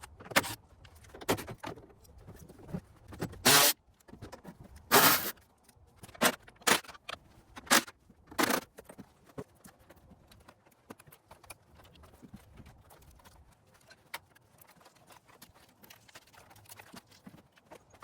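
Metal clinks, knocks and scrapes of hand tools and parts as a car's front end is taken apart, with a few short rattling bursts about three and a half and five seconds in, then fainter scattered clicks.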